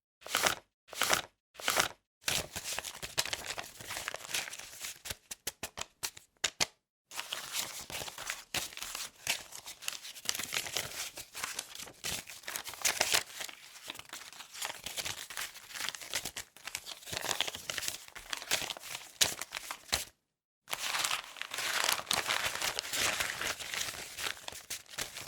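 A dollar bill being crumpled and crinkled by hand in a dense, crackling rustle. It opens with four or five short, separate crisp sounds, and the crumpling breaks off briefly about seven seconds in and again for about half a second near twenty seconds in.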